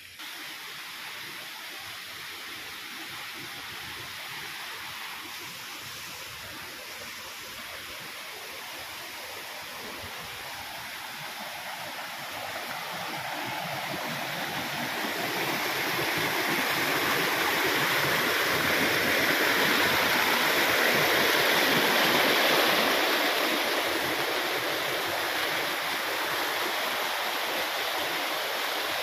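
Muddy stream of runoff water rushing over rocks and debris: a steady rushing noise that swells from about halfway through, is loudest about three quarters of the way in, then eases slightly.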